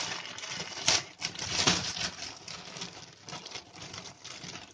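Plastic packaging and a foil butter wrapper crinkling and rustling as they are handled, with two sharper crackles about one and nearly two seconds in.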